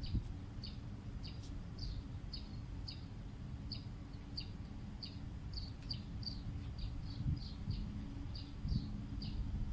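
A small bird chirping over and over, short high chirps about two or three a second, over a steady low rumble and hum.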